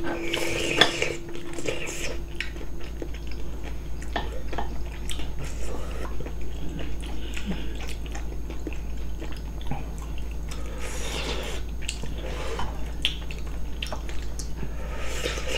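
Spoons and chopsticks clicking against ceramic bowls and an earthenware pot, with people eating hot scorched-rice porridge (nurungji) and slurping from the spoon a few times.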